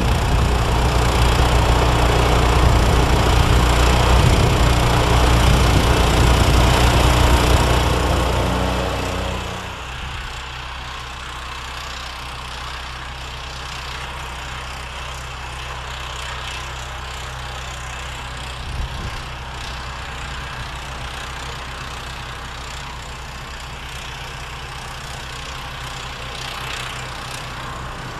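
John Deere walk-behind snowblower's engine running under load as it throws snow. About nine seconds in it drops to a quieter, steady hum, heard from farther away.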